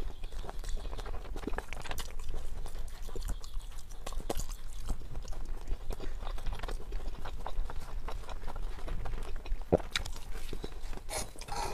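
A person chewing a mouthful of enoki mushrooms in spicy red sauce, close to a clip-on microphone: a long run of small, irregular mouth clicks.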